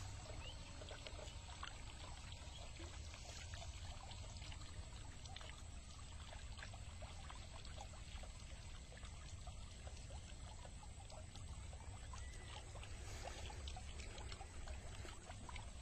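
Faint, steady trickling and pouring of water running through a bamboo-framed fish trap net set in a canal, with many small drips and splashes and a low rumble underneath.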